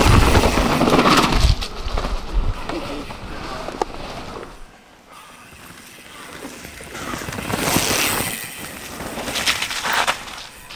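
Mountain bike passing on a dirt trail, tyres rolling and skidding over loose ground, loudest about eight seconds in, with a few sharp clicks near the end. Wind buffets the microphone at the start.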